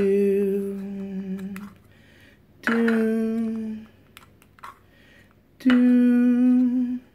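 A person humming three long, steady notes, the second and third a little higher than the first, with a few light clicks of plastic cups being set down in between.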